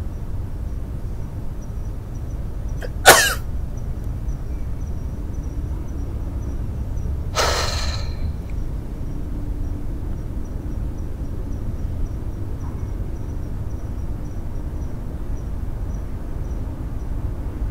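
A person sneezing twice: one sharp, loud sneeze about three seconds in, and a longer, breathier one a few seconds later. A steady low rumble lies underneath.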